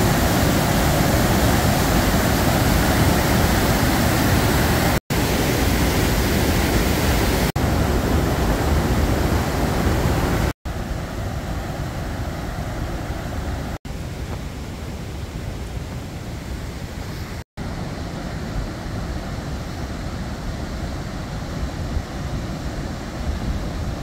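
Mountain stream rushing in white water over boulders: a steady roar of water. It drops out briefly at a few cuts between clips and is somewhat quieter after about ten seconds.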